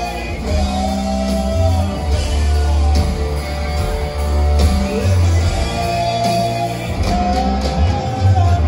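A live rock band playing loud guitars over bass and drums, with long held, bending lead notes over a steady beat, heard from the audience in a large hall.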